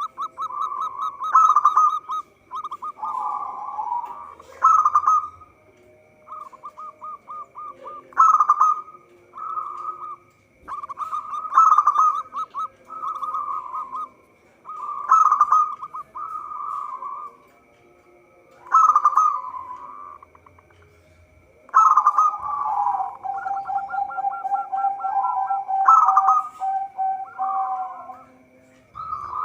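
Zebra dove cooing over and over: each phrase is a quick string of clipped notes running into a longer rolling coo, repeated every second or two. A longer run of overlapping coos comes from about 22 seconds in.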